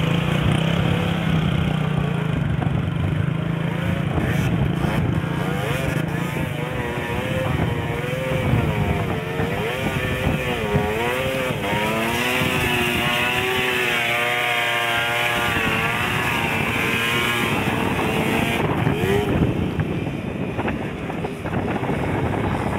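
Small moped-scooter engines running. For the first few seconds there is a steady engine note; after that an engine revs up and down again and again, its pitch rising and falling as a scooter works through deep mud.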